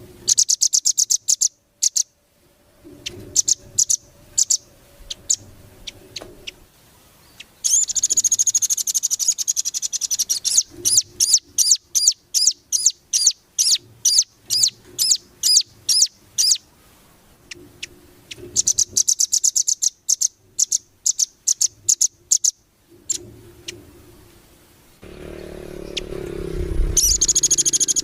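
Small songbird singing a masteran (tutor) song: high, rapid trills and fast strings of sharp chirps in phrases, with short pauses between them. A low rumbling noise comes in near the end.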